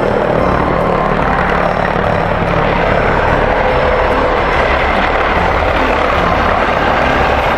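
Helicopter engine and rotor sound, a steady dense rushing noise with a fast low flutter that holds at an even level throughout.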